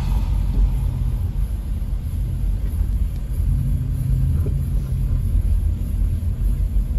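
Steady low rumble of a car driving on a wet road, tyre and engine noise heard from inside the cabin.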